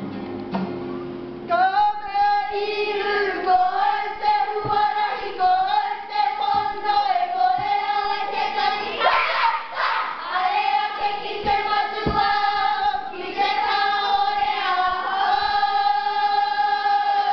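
A group of girls singing a kapa haka waiata together, with long held notes, ending on a held note. The singing comes in about a second and a half in, as an acoustic guitar chord dies away.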